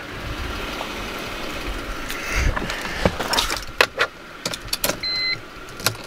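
A BMW M3's dashboard warning chime starts beeping about five seconds in, a short electronic tone repeated roughly once a second as the ignition is switched on. Before it come scattered clicks and knocks from someone getting into the driver's seat and handling the key.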